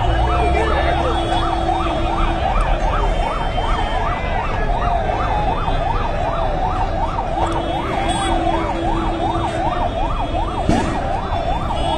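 Siren yelping, a fast rise-and-fall sweep repeating about four times a second, with a single sharp bang near the end.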